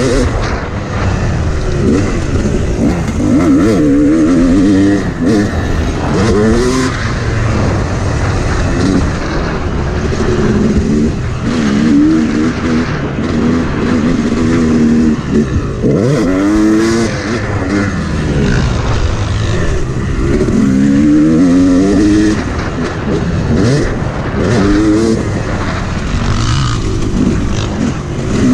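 Yamaha YZ250 motocross bike's engine revving hard and falling back again and again as the rider accelerates, shifts and rolls off around the track, with wind noise on the microphone.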